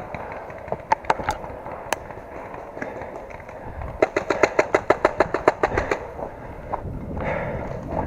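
Airsoft gun firing: a few single shots in the first two seconds, then about four seconds in a full-auto burst of roughly ten shots a second lasting about two seconds.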